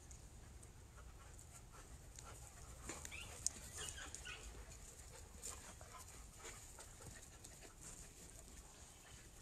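Dogs at play, faint: panting and a few short high whines about three to four and a half seconds in, with a single sharp tick about three and a half seconds in.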